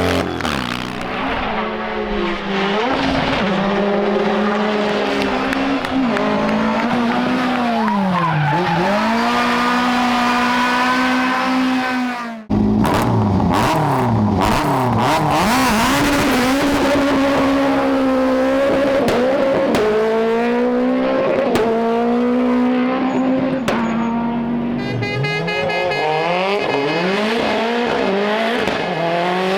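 Rally car engines revving hard on a stage, the pitch dropping and climbing again as the cars brake, shift and accelerate. The sound cuts abruptly about twelve seconds in to another car at high revs.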